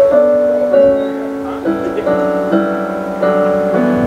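Piano music: slow held chords, changing about every half second to second.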